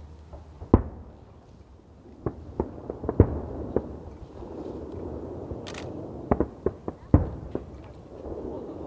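Fireworks going off: a dozen or so sharp, irregular bangs of firecrackers and rockets, some close and loud, others fainter and farther off, with the loudest about a second in, three seconds in and seven seconds in.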